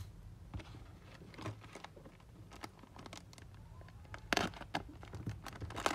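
Light handling noises: scattered soft taps and clicks, with one short, louder rustle about four and a half seconds in.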